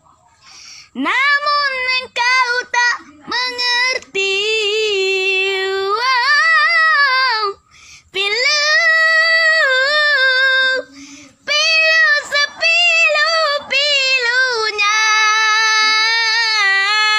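A young boy singing solo in a high voice, holding long wavering notes in phrases with short breaks between them.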